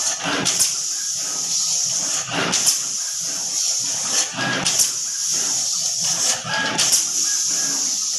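SMT pick-and-place machine running: a steady hiss of compressed air, with a short burst of air and clatter about every two seconds.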